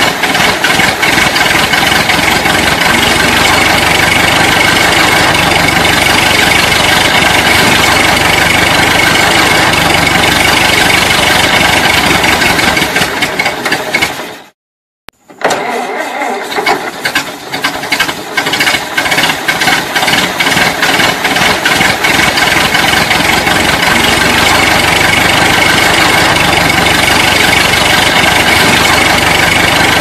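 Old car engine running with a rough, rapid clatter. About halfway through it dies away into a moment of silence, then starts again, running unevenly at first before it settles into a steady run.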